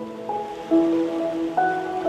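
Background music: sustained melodic notes that change pitch about three times in two seconds, over a soft, even wash of noise.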